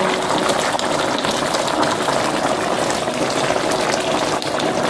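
Gravy with sliced pork shoulder and vegetables boiling in a pot on the stovetop: a steady dense crackle of small popping bubbles.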